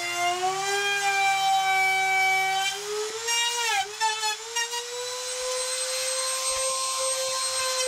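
Trim router with a half-inch bit routing a hinge mortise in a door edge, guided by a template collar. Its motor whine dips and turns ragged as the bit cuts about three to four seconds in, then runs steady and slightly higher once the router is lifted clear of the wood.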